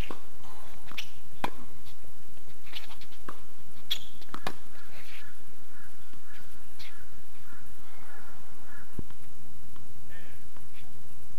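Tennis balls popping off racket strings and bouncing on a hard court during a rally, several sharp pops over the first few seconds. A string of short high chirps runs through the middle.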